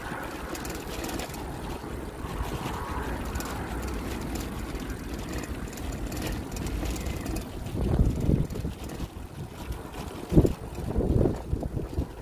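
Wind buffeting the microphone while riding a bicycle, a steady low rumble with several louder gusts in the second half.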